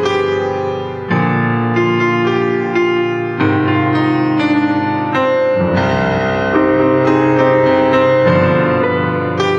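Piano playing a slow instrumental introduction: held chords, with a new chord struck about every second.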